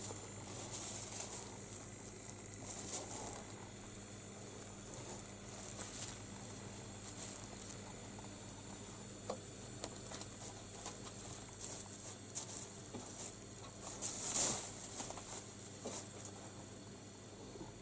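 Faint rustling and crinkling of paper and plastic bags as a kitten clambers over a cluttered shelf, with scattered soft taps; the loudest rustle comes about fourteen seconds in.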